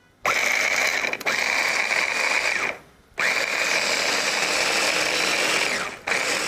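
Small electric food chopper mincing an onion, its motor whining in pulses: it starts just after the beginning, stops for a moment about halfway, then runs again with a short dip near the end.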